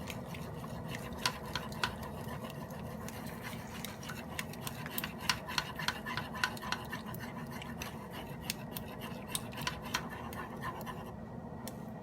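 Kitchen utensils clicking and scraping against dishes or cookware in quick, irregular light clicks over a steady low hum.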